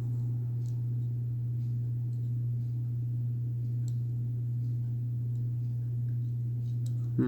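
A steady low hum with faint, scattered light clicks from a small Torx driver working the screws of a folding knife.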